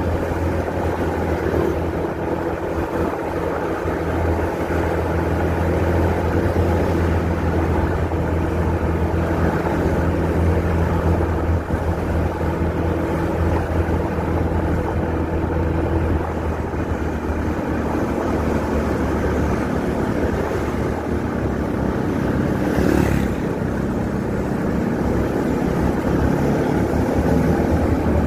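Motorcycle engine running at a steady cruise, with road and wind noise on the microphone. Near the end a short rush of noise rises and falls.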